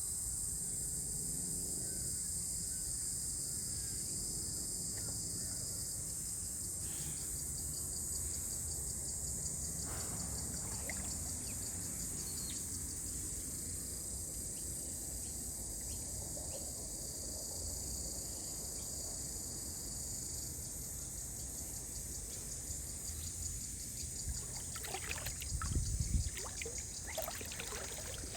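Steady, high-pitched chorus of insects over a low, even rumble, with water splashing and trickling in the last few seconds.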